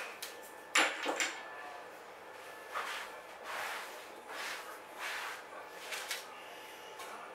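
Kitchen things being handled: three sharp knocks about a second in, then a run of softer scraping or shuffling sounds, roughly one every three-quarters of a second.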